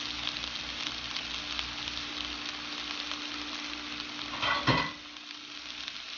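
Dragon chicken in a sticky soy and chilli sauce sizzling in a frying pan, with light stirring. About four and a half seconds in there is a short loud clatter, after which the low rumble underneath stops and the sizzle carries on more quietly: the gas flame being switched off.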